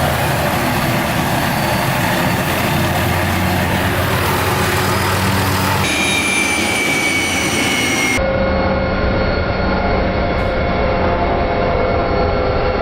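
Helicopter running, heard from inside the doors-off cabin: a steady engine and rotor noise with a high turbine whine. The sound changes abruptly twice, about six and about eight seconds in.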